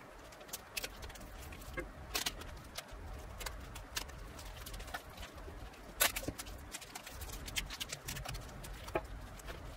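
Thin plastic barrier film crinkling and crackling in scattered sharp bursts as it is handled and wrapped around a pen-style tattoo machine.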